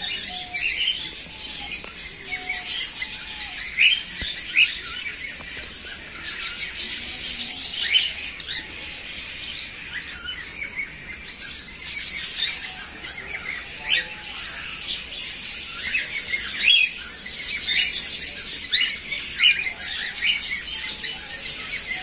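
Aviary flock of small parrots, cockatiels and budgerigars, chattering: many short, high chirps and squawks overlapping without a break.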